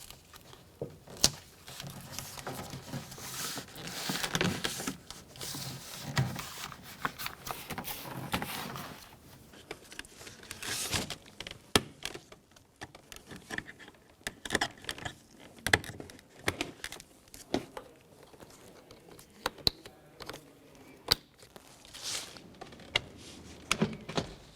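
Duct tape being torn into strips and pressed and rubbed onto a plastic door water shield: crinkling and rustling, with many scattered sharp clicks and snaps.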